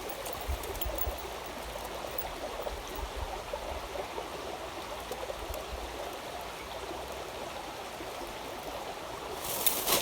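Small creek running over rocks, a steady rushing of water, with a louder rush of noise just before the end.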